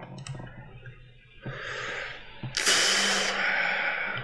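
A man breathing out hard close to the microphone: a shorter breath about a second and a half in, then a louder, longer hissing exhale that begins a little after the two-and-a-half-second mark.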